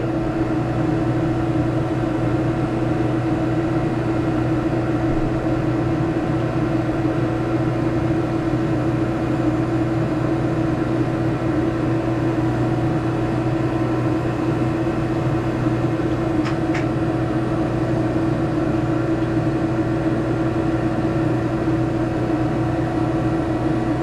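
A 12-volt DC marine air conditioner (a 5,000 BTU cool-only unit) running steadily: a constant hum with several held tones from its compressor and blower. It is under full cooling load, drawing just over 28 amps.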